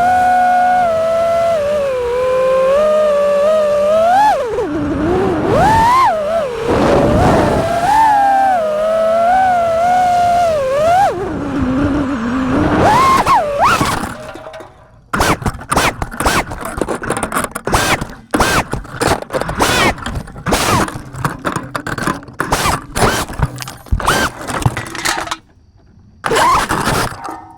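FPV quadcopter's brushless motors and propellers whining, the pitch rising and falling smoothly with throttle. About halfway through the sound turns choppy, short throttle bursts broken by brief gaps.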